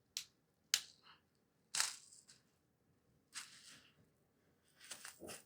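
Faint, short crackles and squishes, about five in irregular succession, from slime being worked by hand and a plastic packet of foam beads being handled and tipped out.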